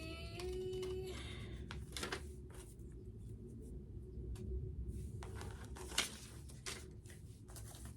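Soft rustling and scattered light clicks of paper and craft materials being handled, over a low steady background hum.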